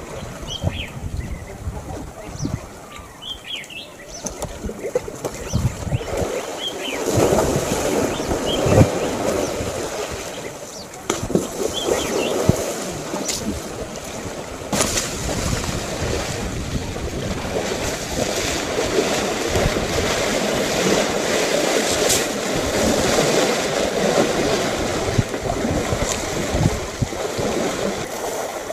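African elephants splashing and sloshing water as they wallow and roll in a waterhole, with wind buffeting the microphone. A few short bird chirps come in the first seconds.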